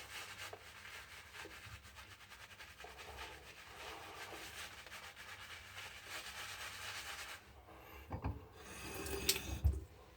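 A synthetic-knot shaving brush swirling shaving gel into a lather, a steady wet brushing and rubbing. The gel needs quite a bit of added water to lather. Near the end the brushing pauses, there is a knock, and then a louder burst of scrubbing.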